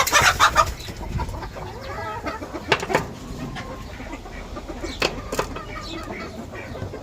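Chickens clucking, loudest in the first half-second, with a few sharp clicks scattered through.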